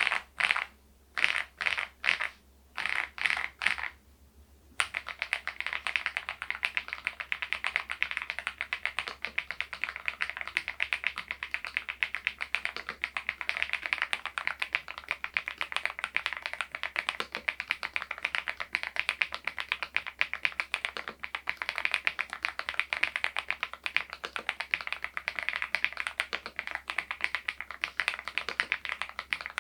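Typing on an Epomaker TH80 V2 PRO mechanical keyboard. It starts with a handful of separate key presses, pauses briefly, then from about five seconds in runs as fast continuous typing.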